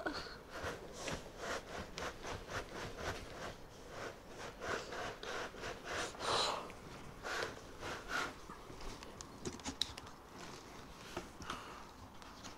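Cardboard shipping box being worked up and off a foam-packed 3D printer: a run of short scraping, rubbing rustles of cardboard sliding against the packing, a couple a second, thinning out near the end.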